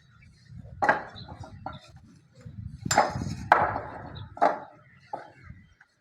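Bricklaying work: tools knocking sharply on brick and mortar, about six irregular knocks over a low background rumble.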